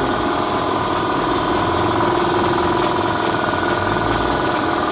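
Electric piston air compressor running steadily, a continuous mechanical hum.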